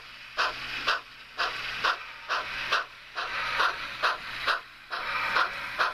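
Sound-equipped model of a Baldwin 2-6-0 steam locomotive chuffing steadily as it runs, about two exhaust chuffs a second, over a faint steady hum.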